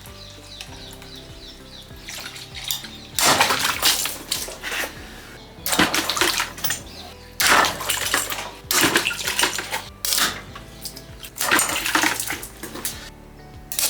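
Water being poured into a bucket in about six separate splashing bursts, over steady background music.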